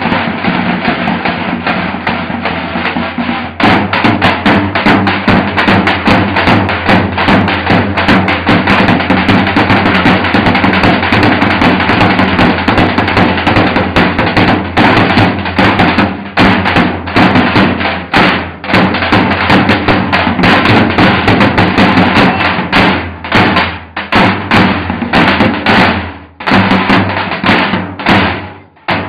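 Three davul, the large Turkish double-headed bass drums beaten with a heavy mallet and a thin stick, played together in a fast, loud rhythm over a steady, held melody. The sharp drum strokes come in about three and a half seconds in and thin out into separate hits near the end.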